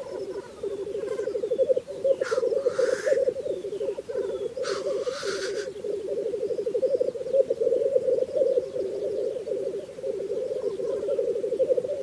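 Displaying male black grouse giving the lekking song: a continuous rapid, low bubbling coo. Two short hissing calls cut across it, about two and five seconds in.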